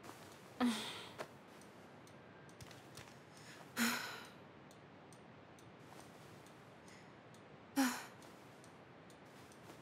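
A woman sighing three times, a few seconds apart, as she wakes; each sigh is a short voiced tone that fades off. A faint, even ticking runs underneath.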